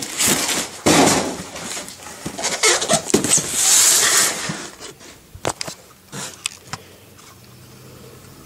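Cardboard chainsaw box rubbing and scraping as it is handled and shifted, with hand-held camera handling noise, then a few light clicks and knocks. It goes quiet after about seven seconds, leaving only a faint low hum.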